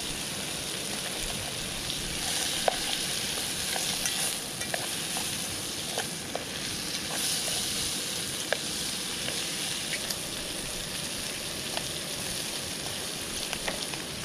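Sliced smoked sausage and mushrooms frying in butter in a Trangia pan: a steady sizzle with scattered sharp ticks, while a wooden spoon stirs them around the pan.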